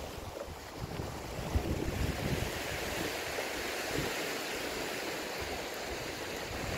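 Sea waves washing over shoreline rocks, a steady surf hiss, with wind rumbling on the microphone.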